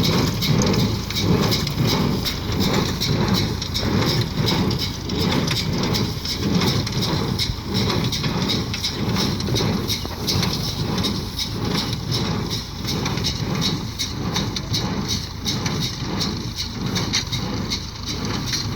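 Fahr 360 square baler working, its plunger knocking in a steady, fast rhythm over continuous machine noise.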